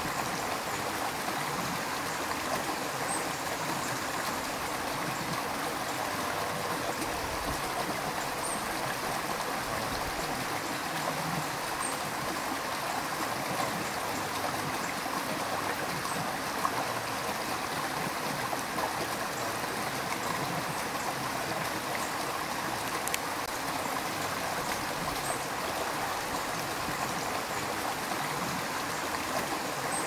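Shallow rocky stream: water flowing steadily over and between stones, with a constant rushing sound.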